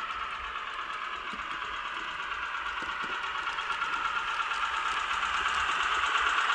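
Digital sound decoder in a Roco H0 model of the NS 200/300 'Sik' diesel shunting locomotive playing its diesel engine sound through the model's small speaker: a fast, even engine knock. It grows louder as the locomotive approaches.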